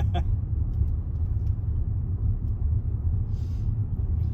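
Steady low rumble of a car's engine and road noise, heard from inside the cabin while driving slowly, with a brief soft hiss about three seconds in.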